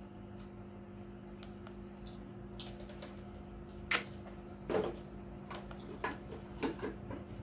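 Plastic clicks from pressing the speed-setting button and handling a cordless impact wrench: a few sharp clicks spread over several seconds, the loudest about four seconds in. A steady low hum sits underneath.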